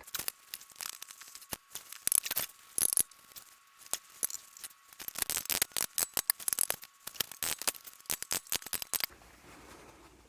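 Irregular metallic clicks and clinks as a Warn lockout hub is wiggled and worked out of a Dana 44 front wheel hub, metal on metal.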